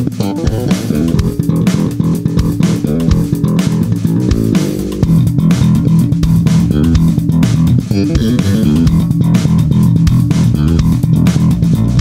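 Vintage Tune electric bass played slap style: thumb slaps and string pops in a busy, funky line, with sharp clicks over strong low notes. It starts on the rear pickup with bass and treble at the midpoint, and it grows louder and fuller about five seconds in.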